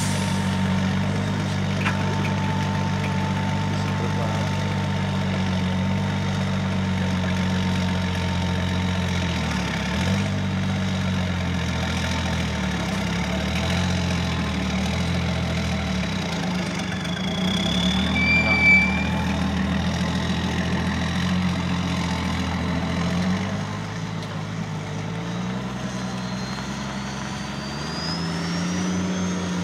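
Truck-trial MAN 6x6 prototype's engine running at low, shifting revs as the truck crawls over a steep dirt mound, its pitch climbing near the end as it pulls up the slope. A brief high squeal is heard about two-thirds of the way through.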